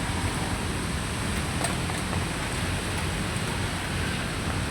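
Steady rushing noise with a low rumble underneath, in a light drizzle.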